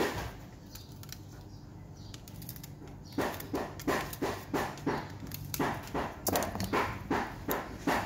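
Light knocks about twice a second, starting about three seconds in: copper winding wire being tapped down into the slots of an electric motor stator.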